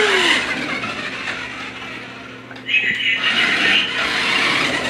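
Remote-control toy police car's small electric motor and gears whirring as it drives over a wooden floor. The whir fades, then starts up again sharply and louder about two and a half seconds in.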